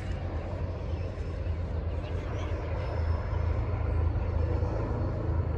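Low, steady rumble of a diesel locomotive approaching out of sight, growing a little louder about halfway through.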